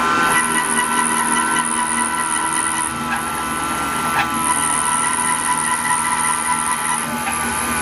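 CNC router spindle running and milling, with a steady high whine. A very high-pitched edge to the sound drops out about three seconds in and returns about a second and a half later.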